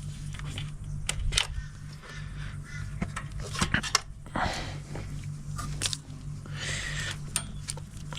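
Scattered small clicks, taps and rustles of hands handling the brake light switch parts and wiring, over a steady low hum.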